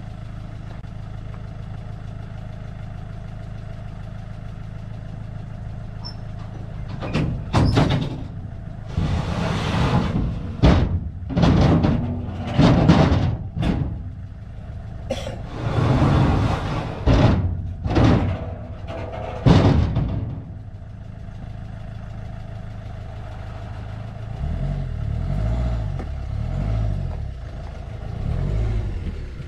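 Recovery truck's engine idling steadily, with a run of loud metal clanks and scrapes in the middle as the loading ramps and gear are handled on the flatbed. Near the end a deeper pulsing engine rumble joins in.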